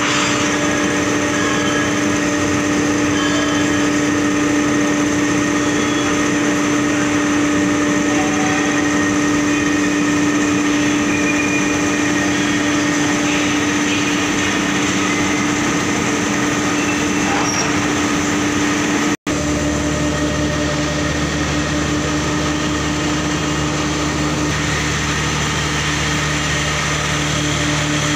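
Steady drone of heavy factory machinery with a strong constant hum. It breaks off for an instant about two-thirds of the way through, and a deeper hum joins in afterwards.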